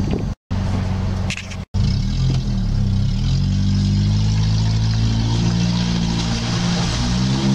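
Vehicle engine running steadily inside a stone tunnel. Its note shifts in pitch about two to three seconds in, then holds steady. The sound cuts out briefly twice in the first two seconds.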